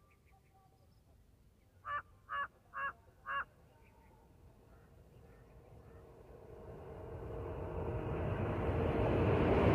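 A bird gives four short calls in quick succession about two seconds in. Then an approaching electric-locomotive-hauled passenger train is heard as a rumble with a steady hum, growing steadily louder through the second half.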